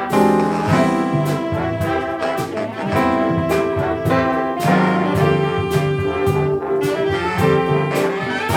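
Big band playing jazz live: trombones, trumpets and saxophones play ensemble lines over drums and a rhythm section, with a steady beat.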